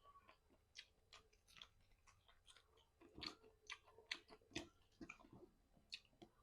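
Faint, irregular mouth sounds of a person chewing fried chicken close to the microphone: soft smacks, clicks and crunches at an uneven pace.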